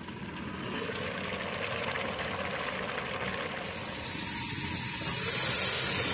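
Grated carrots and milk reducing in a large aluminium pot over high heat, with a steady sizzle that grows louder, the hiss getting stronger about halfway through as the milk dries off.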